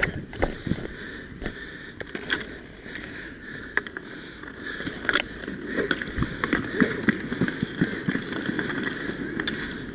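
Inline skate wheels rolling on a hard rink surface, with scattered sharp clacks of hockey sticks during play.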